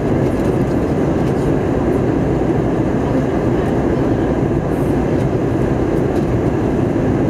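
Airbus A320 cabin noise in flight: a steady, loud, low noise of the jet engine and the airflow, heard from a seat beside the engine.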